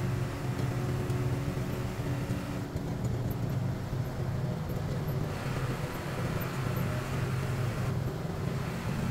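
Hino 1J diesel coach cruising at highway speed, heard from inside the cabin: a steady low engine drone under road and wind noise.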